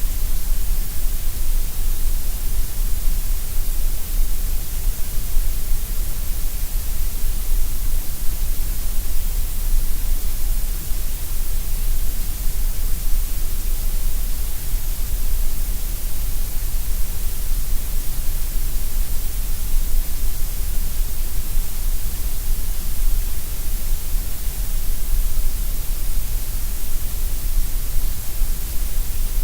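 Steady gray noise: an even, unbroken hiss with a strong low rumble beneath it and a bright top, unchanging throughout.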